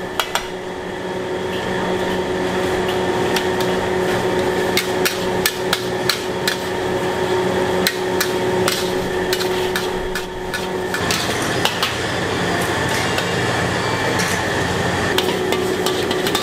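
Metal wok ladle clanking and scraping against a wok as Hokkien mee is stir-fried, in quick irregular strikes over a steady hum.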